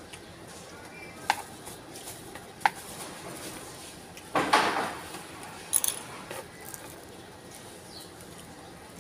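Metal spoon clinking against a plastic-bag-lined bowl as food is scooped up. There are a few sharp separate clinks, a louder half-second noisy sound about halfway through, then a quick cluster of clicks.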